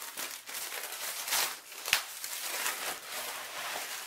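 Clear plastic shrink-wrap being torn and peeled off a cardboard product box: steady crinkling with a few sharp crackles.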